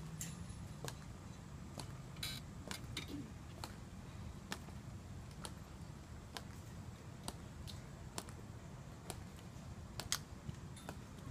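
Measured footsteps of a ceremonial guard's hard-soled shoes, a sharp, even click a little under once a second, with one louder click about ten seconds in.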